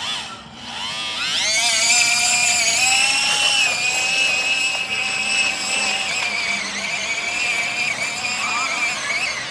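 Small outboard motor of a radio-controlled model inflatable boat spinning up about a second in with a rising whine, then running at a steady high pitch as it drives the boat across the water.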